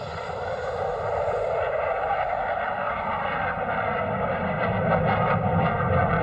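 Airliner engines running up, a steady rumble and rush that rises over the first two seconds and then holds.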